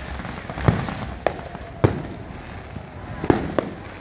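Fireworks going off: about five sharp bangs at irregular intervals, over a steady rumble of background noise.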